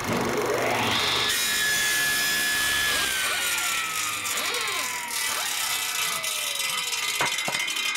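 Circular saw sound effect: the blade spins up to a steady high whine over a rasping cutting noise, then winds down with its pitch falling slowly, ending with two sharp knocks near the end.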